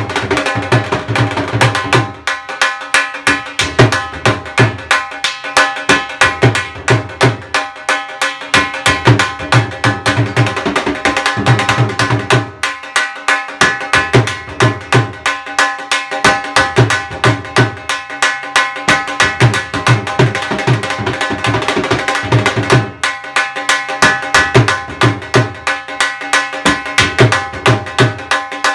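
Dhol played with sticks in a fast, steady rhythm: quick sharp strokes on the higher head throughout, with groups of deep bass strokes that drop out for a moment every four to five seconds.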